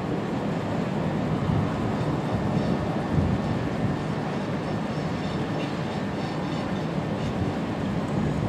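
Steady rumble of a train running through the rail yard.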